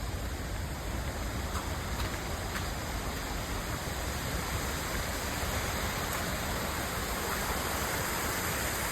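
A large waterfall pouring: a steady rush of falling water with its spray.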